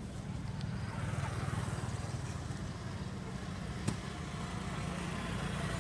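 A steady low rumble with a faint hiss, and one sharp click a little under four seconds in.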